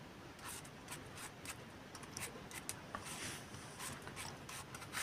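Hand vegetable peeler scraping the skin off an apple in a run of short, faint, irregular strokes.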